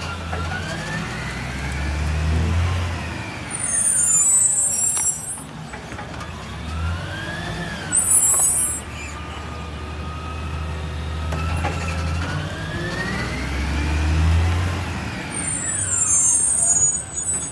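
Side-loading garbage truck working along a street: a steady diesel rumble, with a whine that rises and falls in pitch three times, and three short hisses of the air brakes.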